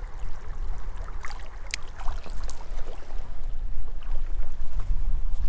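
Wind buffeting the microphone as a steady low rumble over the shallow creek, with a few light water splashes about one to two and a half seconds in as a hand comes out of the water after releasing a trout.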